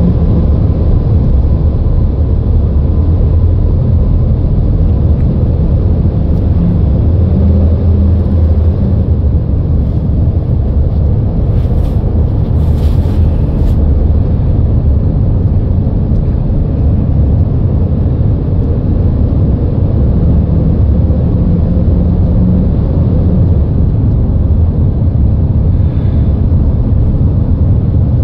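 Steady low rumble of road and traffic noise in a road tunnel, heard from inside a moving car, with a short hiss partway through.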